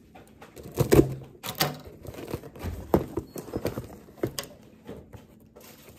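A cardboard parcel box being handled and opened: irregular knocks and taps on the cardboard with scraping and rustling in between, the loudest knocks about a second in and again about three seconds in.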